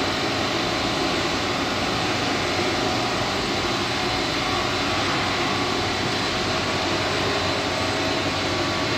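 Stretch film making machine running: a steady, even mechanical drone of its drives, rollers and winder, with a faint thin high tone held throughout.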